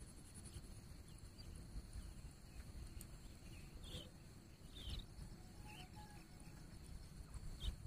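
Grey francolin giving a few faint, short, high calls spaced a second or so apart, over a steady low rumble.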